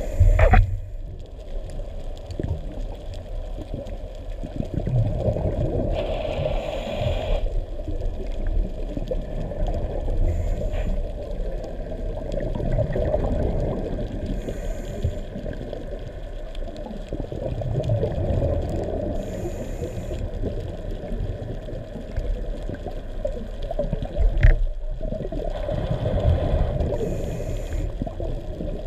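Underwater sound through a diver's camera housing: a steady low rumble and gurgle of water. Every few seconds comes a hissing rush of breath through a scuba regulator. One sharp click comes near the end.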